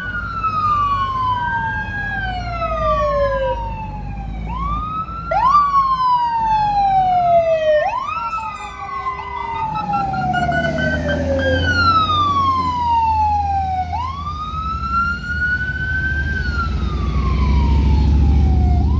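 Sirens of a fire engine and a QRV response pickup on a call, at least two overlapping, each rising quickly and then falling slowly over a couple of seconds. The apparatus's engine rumble grows as the trucks pass in the second half.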